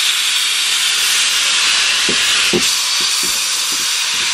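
Small tank steam locomotive blowing steam out of its open cylinder drain cocks, a loud, steady hiss.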